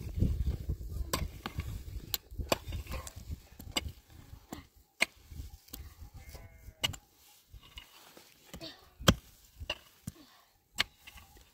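A sheep bleats once, a short wavering call about six seconds in, among scattered sharp knocks and clicks.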